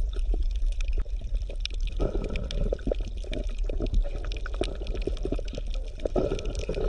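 Steady water sound, bubbling and crackling with many small pops, over a low hum.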